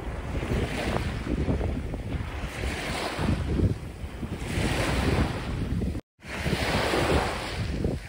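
Small sea waves breaking and washing up a sandy beach, swelling and easing several times, with wind buffeting the microphone as a steady low rumble. The sound cuts out for a moment about six seconds in.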